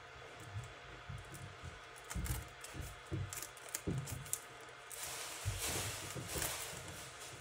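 Faint handling sounds: soft knocks on the tabletop and a few clicks, then rustling of packaging from about five seconds in.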